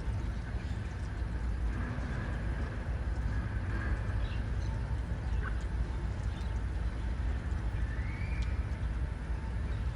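Steady low outdoor rumble with a few faint, short bird calls, one rising and falling near the end.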